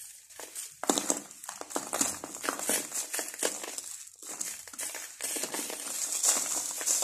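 Dry sand-cement lumps crumbled and rubbed between the fingers, with grit crackling and falling onto a cardboard sheet in a run of handfuls. There are brief lulls just after the start and about four seconds in.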